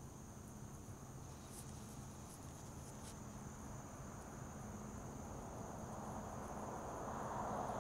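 Crickets and other insects chirping in a steady, high chorus, with a soft rushing noise that swells in the last couple of seconds.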